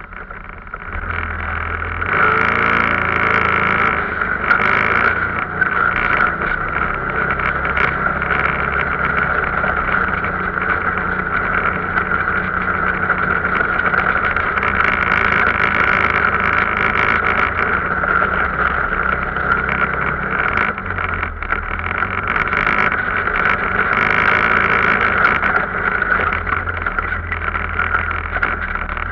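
Arctic Cat off-road vehicle's engine running under way, getting louder about one to two seconds in and then holding a steady drone.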